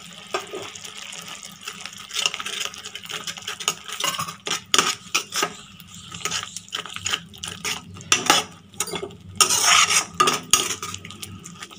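Steel spatula scraping and clinking against a cooking pan as a thick grated-carrot halwa mixture is stirred, in irregular strokes that get busier in the middle and again near the end.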